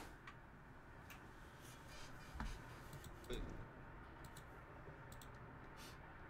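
Faint, scattered clicks at a computer: a few in the first half, then a quicker run of them near the end. A short low sound comes about three seconds in.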